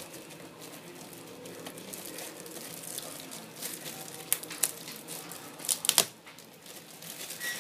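Clear plastic wrapping crinkling and crackling in irregular bursts as hands pull it off a computer power supply, with the loudest crackles in a quick cluster near the end.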